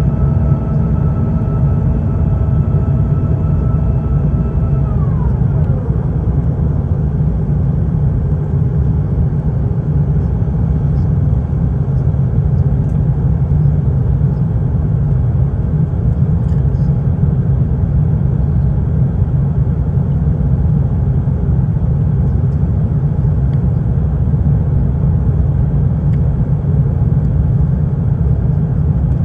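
Airbus A350 jet engines: a loud, steady low rumble with a high whine that drops sharply in pitch about five seconds in, then only the rumble.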